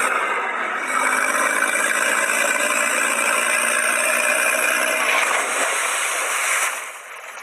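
Tractor engine sound effect running steadily with a hissy, rattly tone, cutting off abruptly near the end.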